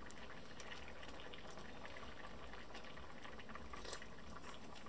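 Clams in marinera sauce simmering on low heat in a frying pan: a faint steady bubbling with scattered small pops.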